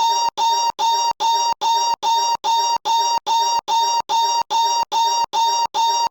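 One short high-pitched noise clip looped over and over, about two and a half times a second. Each repeat is the same steady tone, cut off by a brief silent gap before the next.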